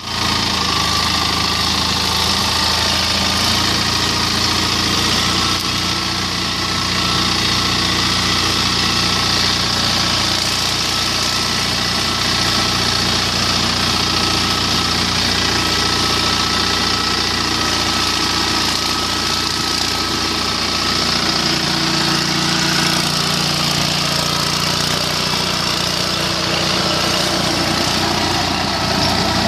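Captain 25 hp compact tractor's diesel engine running steadily while it pulls a rotavator tilling orchard soil. The engine note shifts slightly about two-thirds of the way through, over a continuous hiss.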